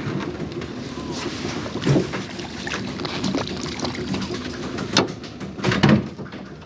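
A hooked cabrilla (small sea bass) being reeled up beside the boat and lifted out of the water: sharp splashes and knocks over a steady rush of wind and water, the loudest near the end as the fish comes out.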